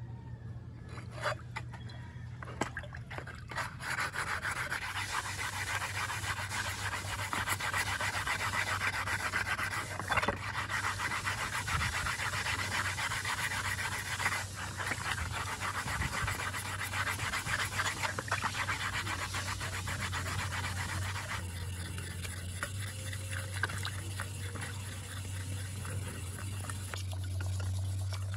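Scouring sponge scrubbed fast and hard over a painted metal part of an old hydraulic jack in a basin of water: rapid rubbing strokes with splashing. In the last several seconds it changes to lighter strokes of wet sandpaper. A steady low hum runs underneath.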